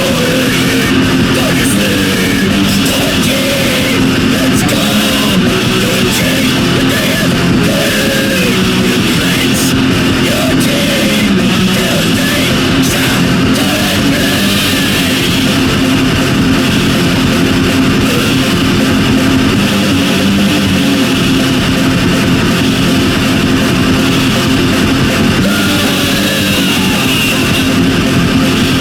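Heavy metal band recording: distorted electric guitars and drums playing at a steady, loud level without a break.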